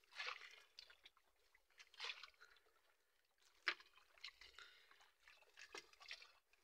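Faint wet swishes and drips of a nylon gill net being hauled hand over hand into a small boat, with a sharp knock a little past halfway and a softer one near the end.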